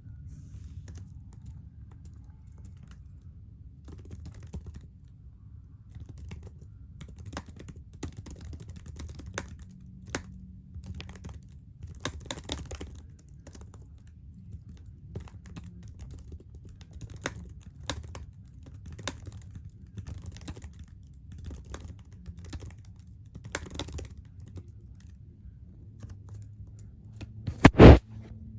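Computer keyboard keys tapped in scattered sharp clicks, some in quick clusters, over a low steady hum. One much louder thump comes near the end.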